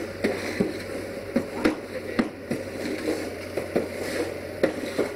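CAT 302.5C mini excavator's diesel engine running steadily, under frequent irregular knocks and scrapes, about two or three a second, as sand is dug and shovelled.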